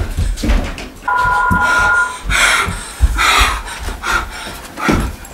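A person breathing heavily, several loud breaths in a row. About a second in, a steady electronic two-tone beep sounds for about a second.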